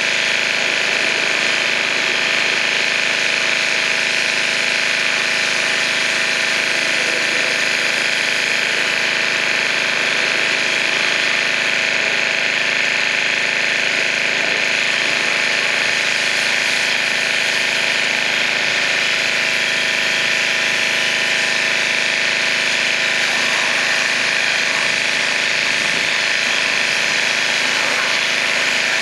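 Pressure washer running steadily: its motor and pump give a constant drone, with the hiss of the high-pressure water spray over it.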